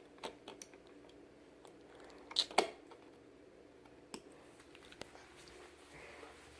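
A few sharp clicks and taps of something being handled, the loudest pair close together about two and a half seconds in, over a faint steady hum.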